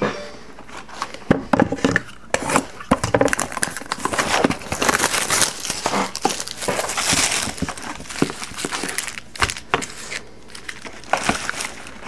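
Boxes of Panini Prizm hockey cards being opened and their wrapped packs handled: irregular crinkling and rustling of cardboard and pack wrappers, with many light clicks and knocks.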